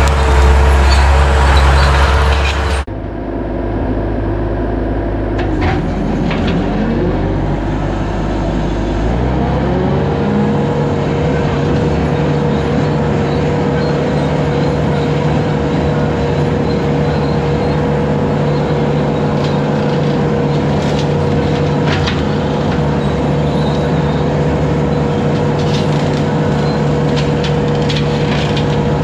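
Bobcat 873 skid steer's diesel engine running a low-flow hydraulic brush cutter. It is loud with cutting noise for the first few seconds, then drops off suddenly. The engine note dips and climbs back between about five and ten seconds in, then runs steady.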